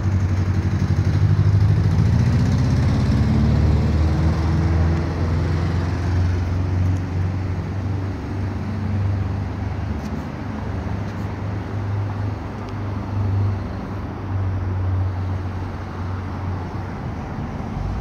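A motor vehicle's engine running close by, its pitch rising over the first few seconds as it speeds up, over a steady low rumble of city street traffic.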